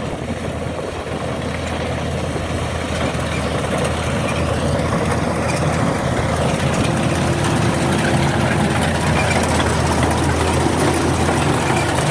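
Kubota DC-105X combine harvester running under load while cutting rice, its diesel engine over a steady mechanical clatter. The sound grows steadily louder as the machine approaches.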